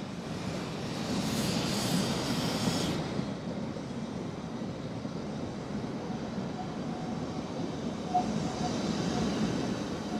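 George England 0-4-0 saddle tank No. 5 Welsh Pony steaming past with its passenger train, over the steady rush of river rapids. A brief high-pitched sound is heard about one to three seconds in.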